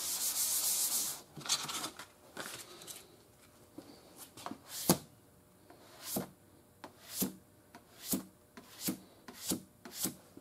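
Wet/dry sandpaper, about 400 grit, hand-sanding the final coat of primer on a car fender before paint. It starts with quick, continuous scrubbing strokes for about a second, then slows to separate short swipes roughly once a second.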